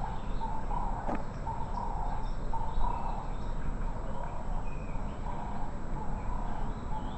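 Birds chirping over steady outdoor background noise: a continuous run of short, repeated chirps at one pitch, with a single sharp click about a second in.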